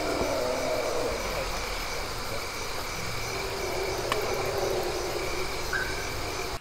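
Night chorus of crickets and other insects chirping in steady, evenly pulsing trills over a continuous low rumble.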